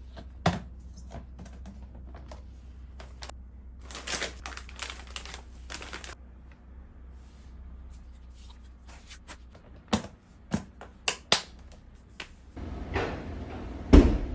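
Scattered clicks, taps and knocks, like objects being handled in a small enclosed space. Near the end a steady noise starts and a loud thump sounds.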